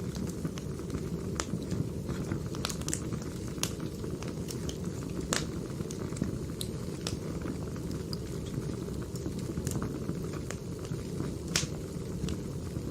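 Firewood burning: a steady low rush of flames with irregular sharp pops and crackles of the burning wood, a louder pop about five seconds in and the loudest one near the end.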